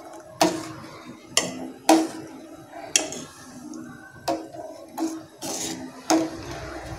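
A steel spoon stirring thick payasam in a stainless steel pot, clinking against the pot about nine times at irregular intervals, each clink ringing briefly. The stirring keeps the payasam from catching on the bottom.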